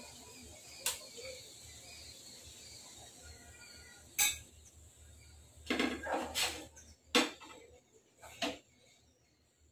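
A metal spatula scraping and knocking against a non-stick tawa while a dosa frying in ghee is lifted and turned. There are a few sharp clatters, most of them in the second half, over a faint steady hiss.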